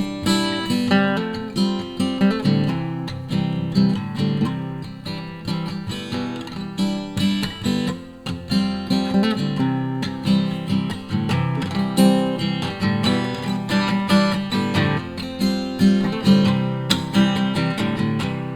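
Acoustic guitar strumming chords in a steady rhythm, an instrumental passage between the verses of a song.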